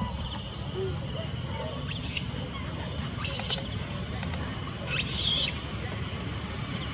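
Three short, high-pitched animal calls that rise and fall, about two, three and five seconds in, over a steady insect chorus.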